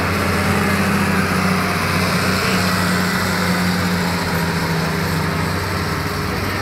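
New Holland tractor's diesel engine working hard under load as it drags a tractor-pulling sled. Its note falls slowly through the pull as the engine is pulled down by the sled.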